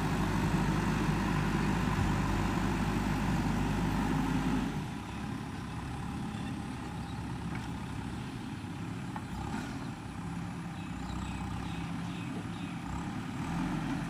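JCB 3DX backhoe loader's diesel engine running steadily as the machine works across the soil. About five seconds in, the sound drops to a quieter, more distant level.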